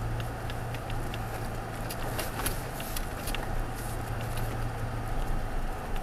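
2016 Toyota Tacoma pickup crawling slowly along a rocky dirt track, heard from inside the cab: a steady low engine hum with the tyres rolling over dirt and stones, and scattered small clicks and crackles.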